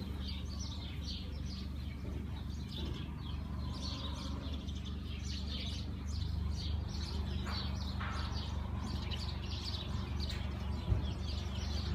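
Many small birds chirping, short quick calls overlapping one another without pause, over a steady low rumble. A single brief knock about eleven seconds in.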